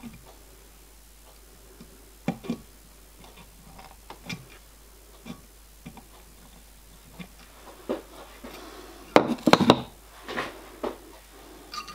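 Scattered small metal clicks and taps of pliers working a small piece of sheet metal against a steel former held in a clamp. A louder clatter of several quick knocks comes about nine seconds in.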